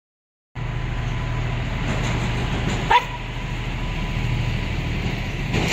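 Steady low outdoor rumble starting half a second in, with a dog giving one sharp bark about three seconds in.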